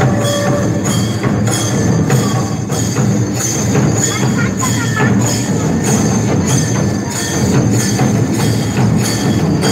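Loud music with a steady percussion beat, about two beats a second, played over a public-address sound system.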